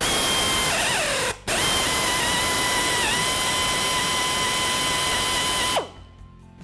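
Power drill driving a small bit through the threaded steel end of a ball joint stud, boring a hole for the cotter pin. The motor whine sags under load in the first second and stops briefly about a second and a half in. It then runs steadily with one short dip as the bit bites, and winds down about six seconds in.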